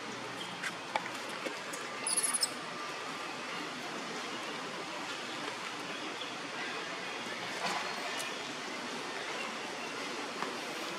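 Steady outdoor background hiss with a few faint clicks, and a short high-pitched squeak about two seconds in.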